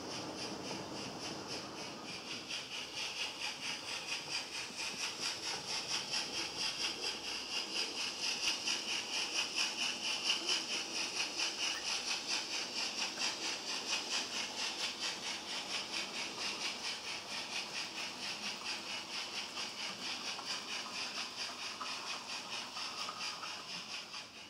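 HO-scale model train running, with a quick, even beat of hissy pulses, about two to three a second. It grows louder toward the middle, eases slightly, and cuts off suddenly at the end.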